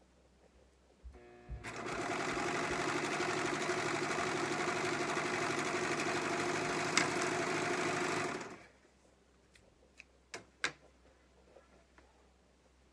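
Brother 1034D serger running at a steady speed as it overlocks a fabric edge. It starts after a couple of knocks, runs for about seven seconds, and stops abruptly. A few sharp clicks follow about two seconds later.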